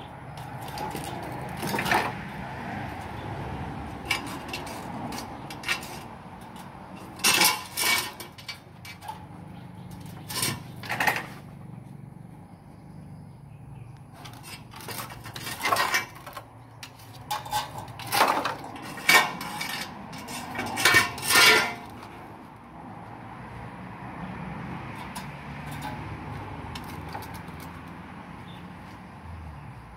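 Irregular clatter and knocks of loose bamboo poles and scrap wood shifting and striking each other as two dogs step and nose through them. The knocks come in bunches, loudest through the middle.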